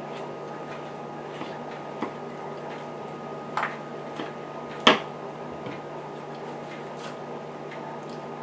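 A few sharp knocks and taps of a knife and raw chicken pieces on a cutting board while a chicken is cut up, the loudest about five seconds in, over a steady low hum.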